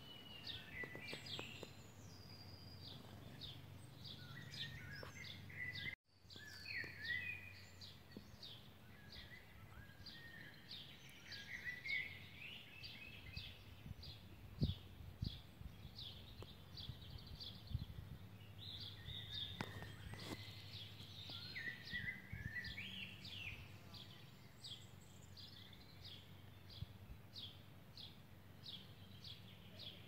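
Small songbirds chirping: a steady run of short high chirps, about two a second, with a few longer warbling phrases mixed in, over a faint low hum.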